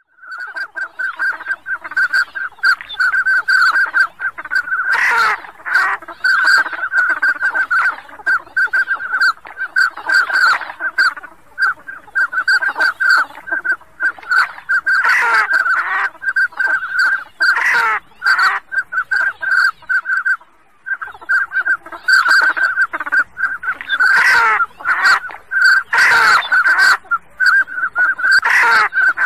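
Pintail duck call blown in rapid runs of short whistles on one high pitch, broken by several louder calls that slide in pitch, with one brief pause about two-thirds of the way through.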